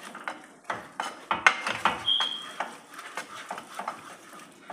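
A utensil clinking, knocking and scraping against cookware while eggs are cooked, with a run of irregular sharp clicks that is busiest around the middle and a brief high squeak about two seconds in.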